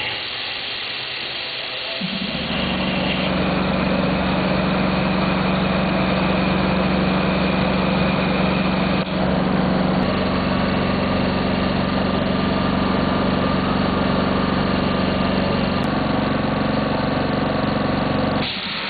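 Isomec rail air compressor starting up about two seconds in and running with a steady, even hum, briefly dipping about halfway, then stopping shortly before the end.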